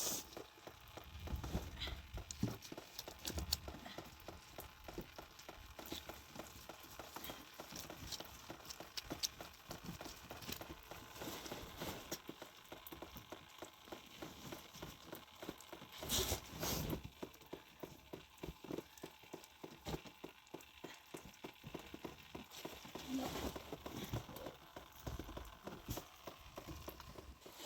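A long run of irregular walking steps, crunching and tapping several times a second, with a louder rustling scrape about sixteen seconds in.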